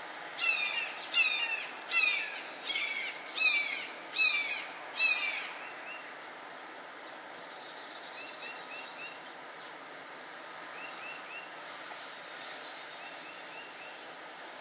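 Red-shouldered hawk calling a series of seven loud, descending "kee-ah" screams about two thirds of a second apart, ending about five seconds in. Faint short chirps in little groups of three or four follow, over a steady wind hiss.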